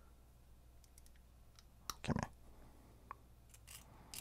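Faint clicks of a small metal bearing tool and a fishing reel's handle-knob ball bearings being handled, with one louder knock and clatter about two seconds in.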